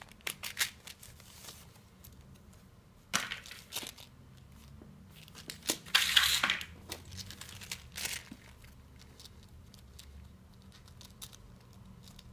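Rustling and scuffing from an imitation-leather screwdriver-bit case being handled, opened and laid down on a wooden table, in several short bursts, the loudest about six seconds in.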